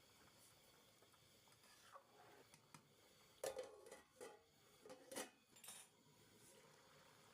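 A few short clinks and scrapes of kitchen utensils against cookware, clustered a little past the middle, otherwise quiet room tone.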